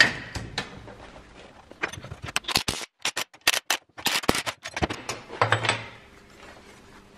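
Cordless DeWalt impact wrench hammering in short bursts as it drives the bolt that pulls a 3D-printed PLA dimple die through steel sheet, the run broken up by short silent gaps. There is a single knock at the very start, and a brief clatter of metal parts just before the end.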